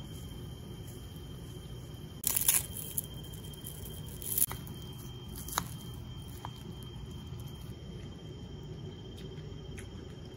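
Dried seaweed torn and crumbled over a stone bowl, a short crackling rustle about two seconds in and a smaller one a couple of seconds later. Then a metal spoon clicks lightly against the bowl twice, over a steady low background hum.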